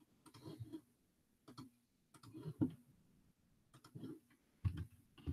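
Faint computer mouse clicks and keystrokes, a few scattered taps with soft low murmurs between them, while a graph is copied and pasted on the computer.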